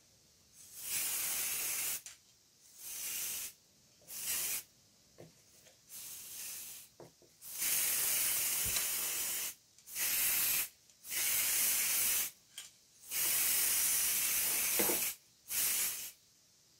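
Aerosol spray-paint can sprayed in about ten bursts, some brief puffs and some held for a second or two, each a steady hiss that starts and stops sharply.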